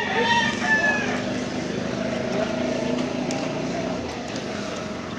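A rooster crowing once for about a second, then steady street noise with a motor vehicle engine humming.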